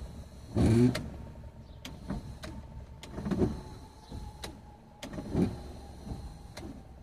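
Electric windshield wipers sweeping across the glass, the motor whirring in three strokes about every two seconds, with a few light clicks between them.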